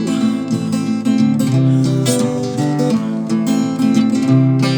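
Acoustic guitar playing fingerpicked and strummed chords, with the chord changing every second or so, in an instrumental passage of a folk song.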